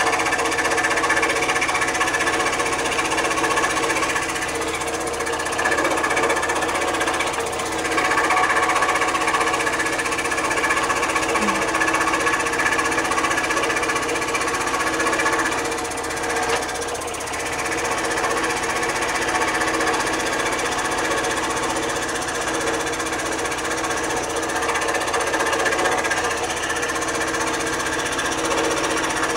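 PS Wood electric scroll saw with a Super Sharp #5 blade running steadily, the blade stroking up and down as it cuts through a block of pine.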